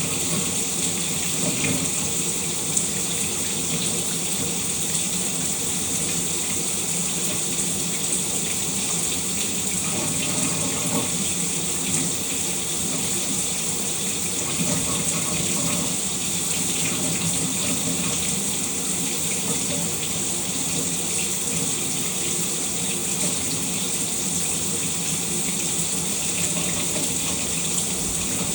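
Shower running steadily, an even hiss of water spray falling.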